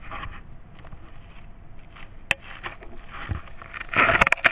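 Pond water splashing and sloshing as a paper model rocket is fished out, with a sharp handling knock about two seconds in. A louder burst of splashing comes near the end.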